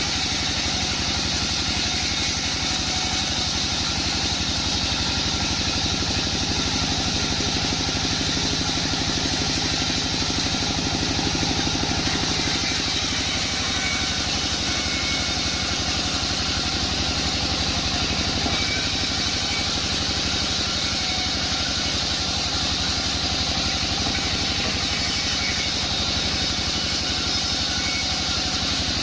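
Band sawmill machinery running steadily: a constant engine-like drone with no pauses or changes.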